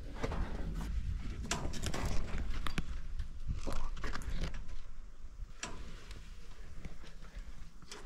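Footsteps with irregular knocks and scuffs over a low rumble.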